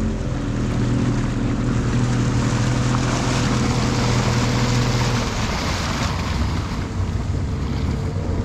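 Boat underway at sea: water rushing past the hull with wind on the microphone. A steady low drone runs under it and fades out about five seconds in.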